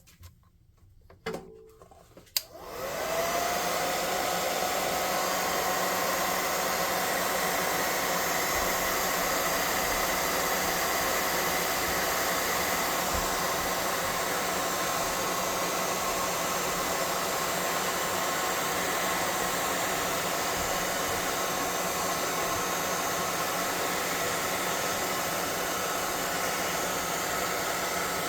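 Handheld hot-air blower (an air gun) switched on about two and a half seconds in after a few handling clicks, its motor spinning up with a rising whine and then blowing steadily, drying freshly applied paint on a miniature.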